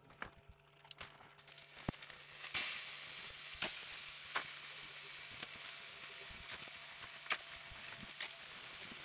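Sous-vide venison steaks sizzling as they are laid into a hot stainless steel pan to sear. The sizzle starts about two seconds in, grows as more pieces go down, then holds steady, with occasional sharp clicks.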